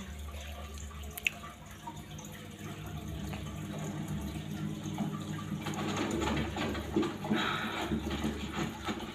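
Steady running, trickling water over a low steady hum, with a single sharp click about a second in.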